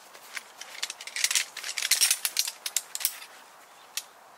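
Folding metal camp stand being opened out: a fast run of clicks and clatter as its legs and pole sections knock and snap into place, loudest in the middle, with a few single clicks near the end.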